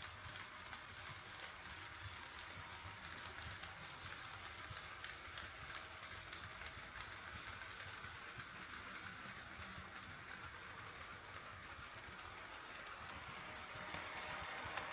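HO scale model train running on the track: a steady rolling hum and rumble from its wheels and motor, growing louder with light clicks near the end as it comes closer.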